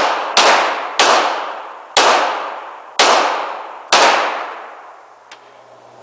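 A handgun being fired, five shots about a second apart, each with a long echoing tail; the last tail dies away near the end.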